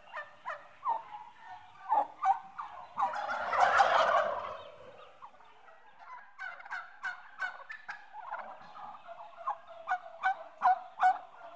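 Turkey gobbling: a continual run of short, falling, yelping calls, with a brief rustling noise about four seconds in.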